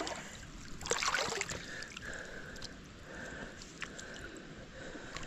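Shallow creek water running and gurgling over a riffle, with a brief louder burst about a second in.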